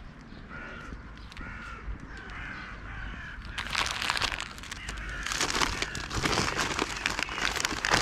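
A crow cawing in a quick run of about six calls, half a second apart, followed from about halfway through by the crinkling of a plastic bag of nuts being rummaged through, which is louder.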